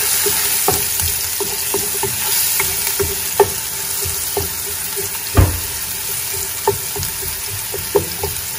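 Diced onions and garlic sizzling in hot oil in a nonstick pot, stirred with a wooden spatula that taps and scrapes against the pot now and then, with one louder knock about halfway through.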